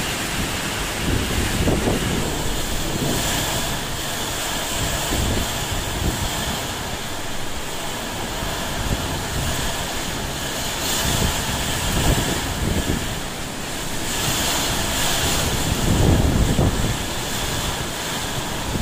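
Cyclone-force wind with heavy rain, a steady hiss with strong gusts buffeting the microphone every few seconds.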